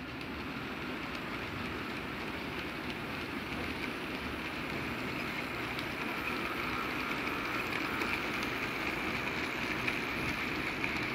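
HO-scale model train running toward the microphone: the steady whir of the model locomotives' motors and the rolling noise of small metal wheels on the rails, growing gradually louder as the train approaches and its freight cars pass.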